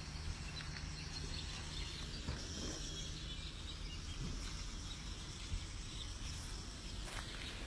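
Steady outdoor background noise, a low rumble and hiss with faint high chirping; no distinct gunshot stands out.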